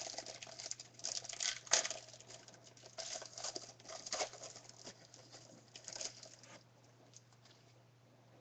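Trading cards and their pack wrapping being handled: irregular rustling and scraping for about six and a half seconds, then it stops.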